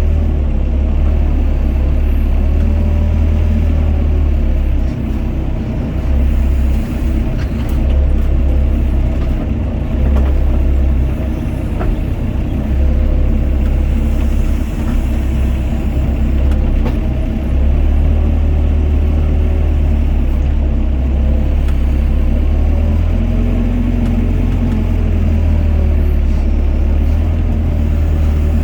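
Doosan DX55 mini excavator's diesel engine running under load while it digs and loads mud, with a loud, steady low rumble whose strength rises and dips as the hydraulics work.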